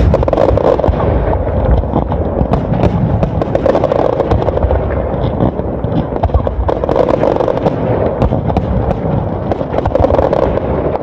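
Fireworks display: aerial shells and low-level effects going off in a rapid, unbroken barrage of bangs and crackles.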